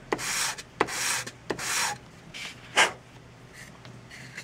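A scale-model fuselage section rubbed back and forth on a flat sheet of sandpaper. There are about four quick sanding strokes in the first two and a half seconds, a short sharp scrape just under three seconds in, and then only faint scuffing. The contact surface is being sanded flat to take off its shine and true up the part's alignment.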